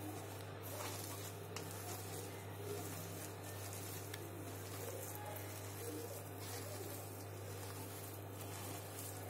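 Faint soft squishing and patting of a bare hand mashing a boiled-potato, bread and vegetable mixture in a plastic bowl, over a steady low hum.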